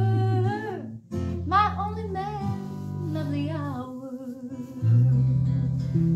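A woman singing over her own acoustic guitar, with a louder, fuller guitar chord struck about five seconds in.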